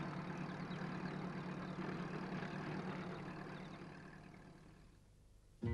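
Van engine running steadily, then fading away over the last two seconds as the van drives off.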